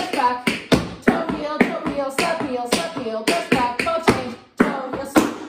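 Metal tap plates on tap shoes striking a tap board in a quick, uneven rhythm of single taps, shuffles and heel drops. The tapping cuts off abruptly near the end.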